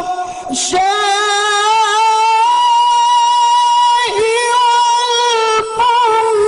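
Male qari chanting Quran recitation in the melodic tilawah style. He takes a quick breath about half a second in, then holds long, high notes ornamented with wavering trills.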